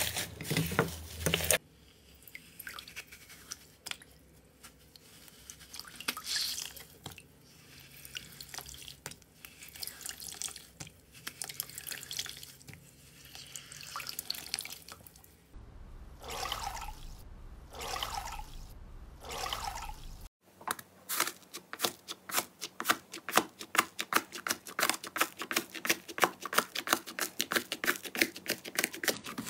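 Slime being handled in a series of short clips: soft wet squishes and drips, then a dense run of rapid crisp crackles from about two-thirds of the way in.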